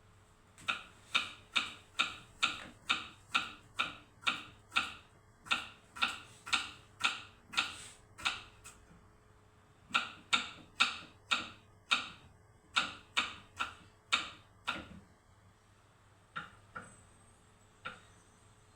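Knife chopping on a cutting board in a steady rhythm of about two to three chops a second. It pauses briefly just before the middle, resumes, then slows to a few scattered chops near the end.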